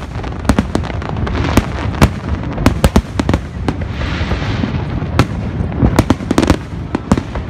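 Aerial fireworks shells bursting overhead in rapid, irregular succession: many sharp bangs, several a second.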